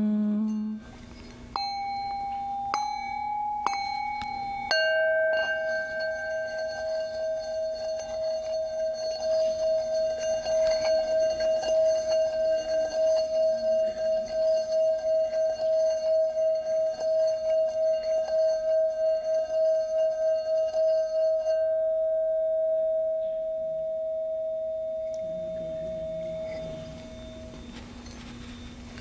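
Tibetan singing bowls: a higher-pitched bowl is struck lightly three times, then about five seconds in a blue bowl with a lower note is struck and its rim rubbed with a wooden mallet. This builds a sustained ringing tone with a steady pulsing wobble, which dies away a few seconds before the end.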